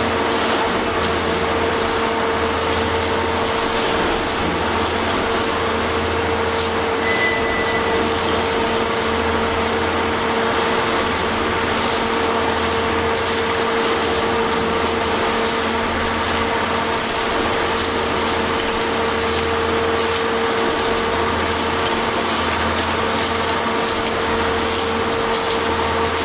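Railway track maintenance machinery running steadily: a heavy engine rumble with a constant hum, under a dense hiss and rapid ticking in the high range.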